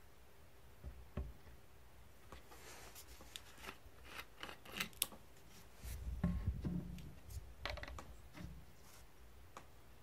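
Scattered light clicks and taps of things being handled, with a low rumble of knocks about six seconds in and a short rustle near the end.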